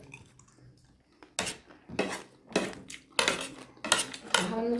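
Metal spoons clinking and scraping against plates. After a quiet first second comes a quick string of sharp clinks and scrapes.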